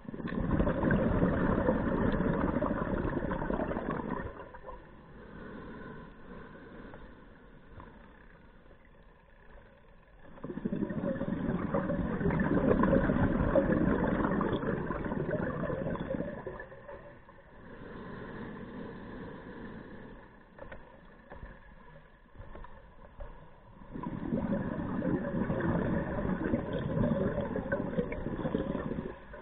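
Scuba regulator breathing heard underwater: three long exhalations, each a loud rush of bubbling, about ten seconds apart, with fainter inhalations through the regulator between them.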